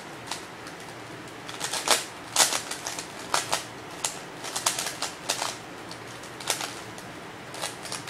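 Plastic 3x3 Rubik's cube being turned quickly by hand during a solve: its layers clicking and clacking in quick irregular runs with short pauses between, the loudest run about two seconds in.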